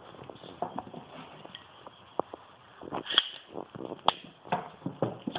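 Steel adjustable plumber's pliers being handled: irregular metal clicks and clacks, the sharpest about three and four seconds in.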